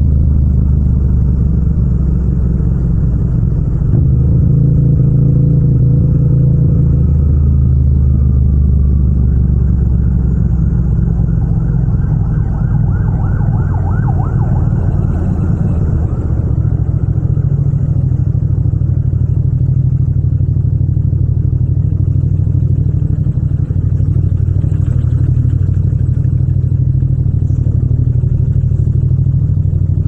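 Yamaha MT-07's parallel-twin engine and exhaust running at low revs as the motorcycle creeps through slow traffic. A higher rising whine joins briefly about halfway through.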